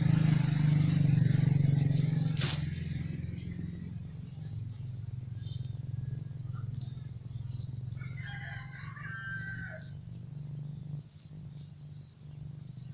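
A motor engine running with a low steady hum, loudest at the start and fading over the first few seconds. A bird chirps briefly about eight seconds in, over a thin steady high insect whine.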